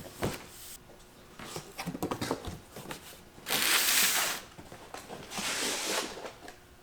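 Tool-kit packaging being handled: a few light knocks and clicks, then two longer rustling, sliding noises, one about three and a half seconds in and one about five seconds in.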